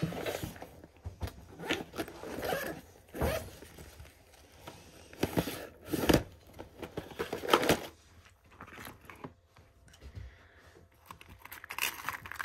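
A zipper pulled open on a soft canvas tackle bag, then a plastic tackle box slid out of it and its lid opened, with rustling and scraping in irregular spurts separated by short pauses.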